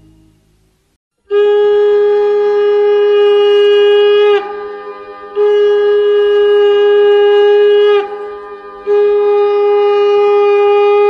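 Conch shell (shankha) blown in three long, steady blasts, starting about a second in. Each blast holds one pitch and dips slightly as it ends.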